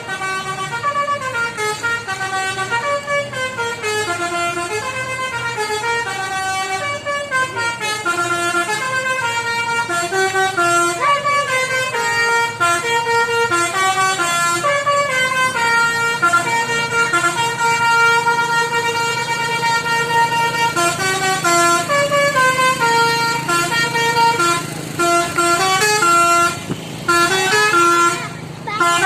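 A bus's telolet multi-tone air horn playing a long melody of stepping notes, loud and continuous, with a couple of short breaks near the end. A low engine hum runs underneath.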